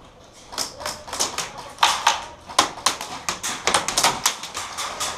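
A rapid, irregular series of sharp clicks and taps, several a second, starting about half a second in.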